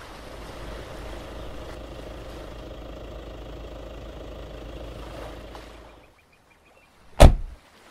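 A car engine running steadily, which stops about six seconds in. About a second later comes a single sharp, loud knock, the loudest sound here.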